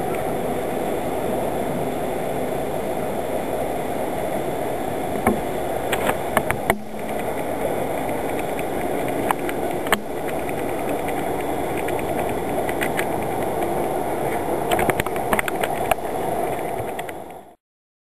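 Passenger train pulling away: a steady rumble of the coaches running on the track, with a few sharp clicks and knocks. It cuts off suddenly near the end.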